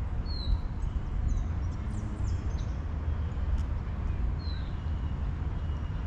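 Outdoor ambience: a steady low rumble, with short downward-sliding bird calls, one just after the start and another about four and a half seconds in.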